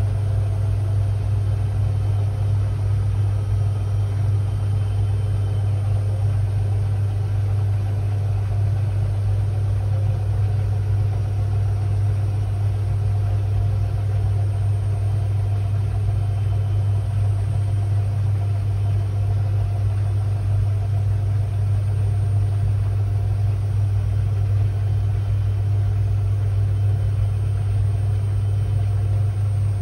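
Washing machine running its Quick 30 (30 °C, 800 rpm) programme: a steady, unchanging deep motor hum with no breaks.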